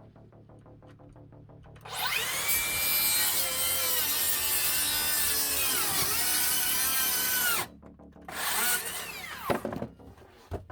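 Makita XGT 40V cordless circular saw cutting chipboard: a long high-pitched run whose whine dips in pitch about two-thirds of the way through as the motor bogs under load, then stops. After that comes a shorter second run that winds down in pitch, and a few clicks. The owner feels the saw is struggling more than it should in this cut.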